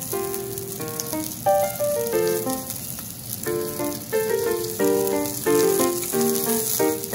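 Background music, a melody of short distinct notes, over a steady faint sizzle of steak cooking on a hot iron griddle plate.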